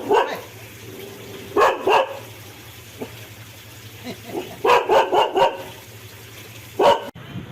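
A dog barking in short clusters: a bark at the start, two barks about a second and a half in, a quick run of several barks around five seconds in, and one more near the end.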